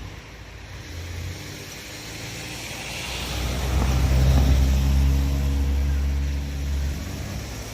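A motor vehicle passes by with a low engine and tyre rumble. It swells to its loudest about halfway through and fades near the end.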